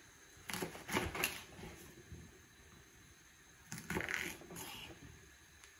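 Chef's knife cutting through a raw artichoke against a wooden cutting board, in two bursts of short cuts: one about a second in and another about four seconds in.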